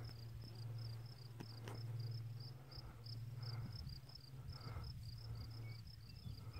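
Quiet outdoor stillness with an insect chirping steadily, about three to four short chirps a second, over a low steady hum.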